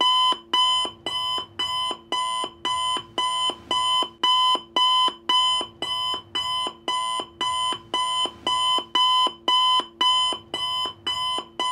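Countdown timer sound effect: a short ringing, clock-like tick repeating evenly a little over twice a second, each tick with the same bright pitch.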